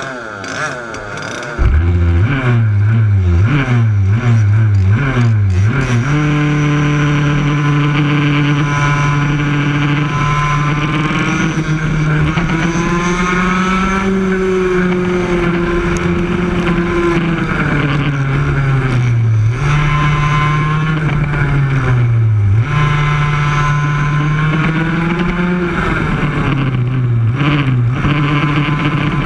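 Yamaha KT100 two-stroke kart engine firing up about a second and a half in and revving in short bursts as the kart pulls away. It then runs hard at racing speed, its pitch dipping and climbing again through the corners.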